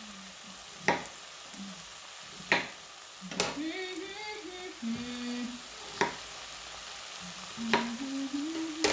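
Chicken and potato pieces sizzling in a pot on the hob, with sharp pops of spattering fat every second or two. A faint voice is heard in the background a few seconds in and again near the end.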